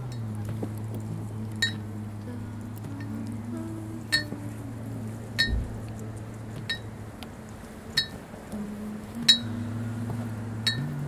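Slow, sparse music: long held low notes that shift in steps, with a bright metallic clink ringing out roughly every second and a half.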